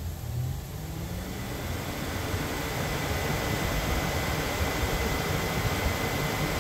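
1999–2004 Jeep Grand Cherokee WJ electric radiator cooling fan, just installed and powered on test leads, spinning up with a rising hum in the first second and then running steadily with a rush of air. A faint high whine sets in about two seconds in. The fan is running smoothly.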